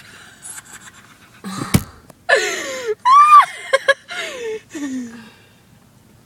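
A short sharp noise, then voices crying out in a run of wavering cries that slide down in pitch, with panting and gasping breaths: playful screams in a make-believe explosion scene.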